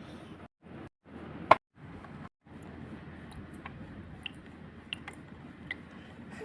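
A sharp click about one and a half seconds in, then a few faint light ticks, over a low steady background hiss.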